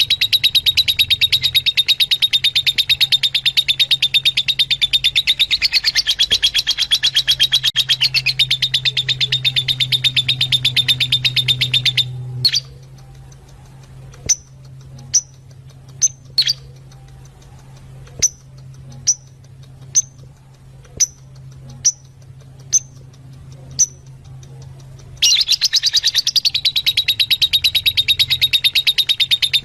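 Fischer's lovebirds chattering in a dense, fast stream of high chirps that stops abruptly about twelve seconds in, leaving single sharp chirps roughly once a second, before the dense chattering starts again just as abruptly near the end. A steady low hum runs underneath.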